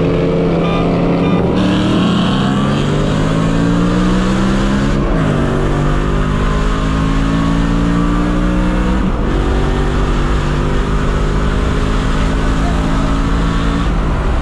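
BMW E92 M3's V8 with a straight-piped exhaust, heard from inside the cabin, accelerating through the gears. The engine pitch climbs steadily and drops sharply at each upshift, about five seconds in, about nine seconds in and again near the end.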